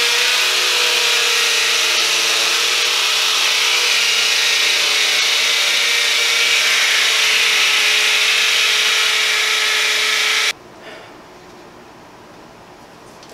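Cordless hammer drill boring into granite: a loud, steady grinding drill noise with a constant tone through it, which stops abruptly about ten and a half seconds in. The drill bit is burning up in the hard stone without getting through.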